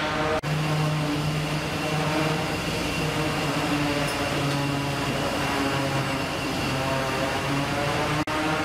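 Steady mechanical drone of a fish-processing line's conveyors and machines, with a hum that swells and fades slightly. The sound drops out for an instant about half a second in and again near the end.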